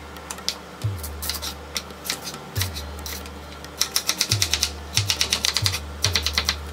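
Kitchen knife chopping a carrot on a wooden cutting board: a few single cuts at first, then, a little past halfway, quick runs of rapid chops as the carrot is diced.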